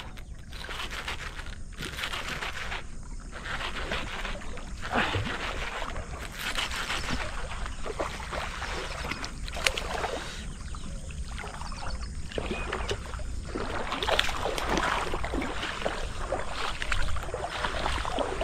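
Footsteps wading and sloshing through shallow water and wet grass, in irregular bursts of splashing and swishing.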